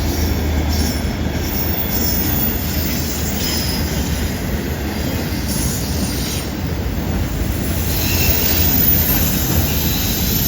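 Cars of a CN intermodal freight train rolling through a curve: a steady rumble of wheels on rail, with a thin, high wheel squeal that comes and goes.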